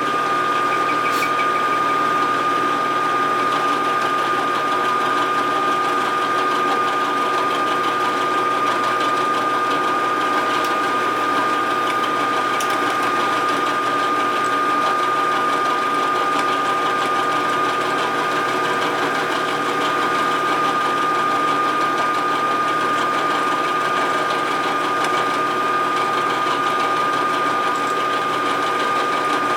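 Vertical milling machine running steadily with a constant whine, its drill bit cutting into a welded aluminum 1947 Harley-Davidson EL knucklehead engine case.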